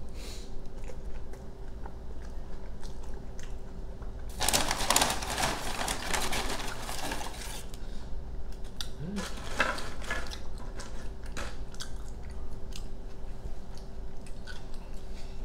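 Close-miked chewing of a burrito: wet mouth sounds and scattered sharp clicks. About four seconds in comes a louder spell of crunching and rustling that lasts about three seconds.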